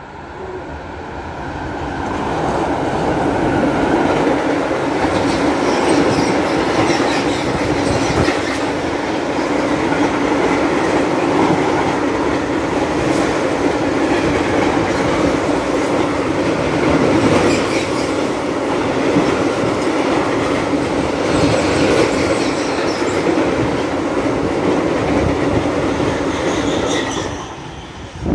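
Freight train passing close by. The sound builds over the first few seconds as the locomotive comes up, then a long run of freight wagons goes past with a steady rumble, repeated clacks of wheels over the rails and some high wheel squeal. It drops away suddenly near the end as the last wagon clears.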